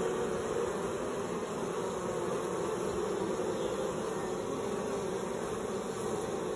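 Many honeybees buzzing in a steady drone at the hive entrance, some fanning their wings to signal the colony's new home and, the beekeeper thinks, to spread pheromones.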